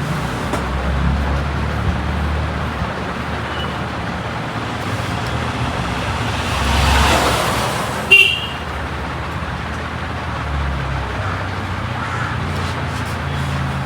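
Road traffic going by, with one vehicle passing closer about seven seconds in and a short horn toot just after it.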